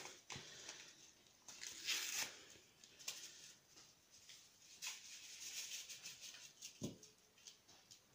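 Faint crinkling and rustling of a small paper sugar sachet being opened and shaken out over a stainless steel mixing bowl, with scattered light taps and one soft knock near the end.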